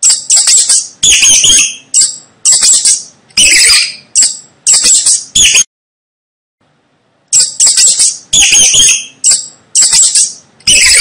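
Mice squeaking: a rapid run of shrill, high-pitched squeaks, several a second. They cut off suddenly about halfway through and start again after a second and a half of silence.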